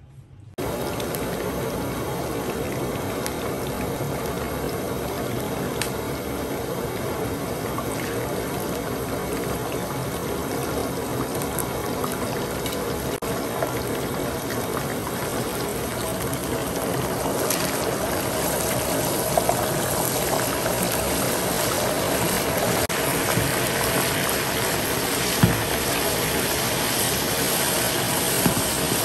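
Water running steadily, starting suddenly about half a second in and growing a little louder in the second half.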